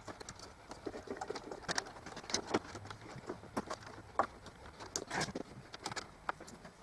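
Scattered light clicks and taps of plastic parts and fittings being handled as a replacement water pump and its rubber seal are fitted into a coffee machine, a dozen or so irregular knocks with no steady running sound.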